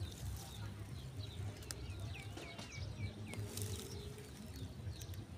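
A bird calling: a quick run of about five short, down-slurred chirps a couple of seconds in, with other faint chirps, over a low steady rumble.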